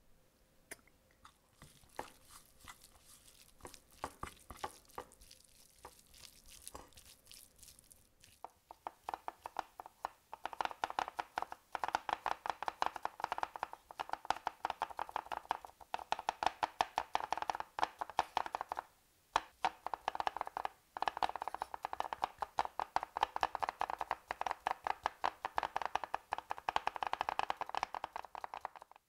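Kitchen knife chopping vegetables on a cutting board in quick, even strokes. It starts about eight seconds in and gets louder, with a couple of short pauses. Before that there are only scattered light clicks and handling sounds.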